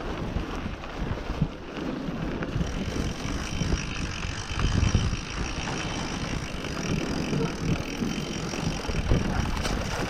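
Mountain bike riding a bumpy forest trail: tyres rumbling over the ground and the bike rattling over bumps, with wind on the microphone.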